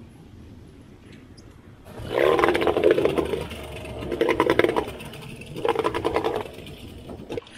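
Suzuki tiller outboard being pull-started: three bursts of rapid cranking, the engine not catching.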